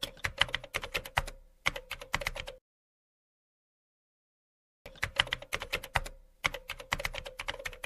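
Keyboard typing sound effect: two runs of rapid keystroke clicks, each about three seconds long, with a silent gap of about two seconds between them.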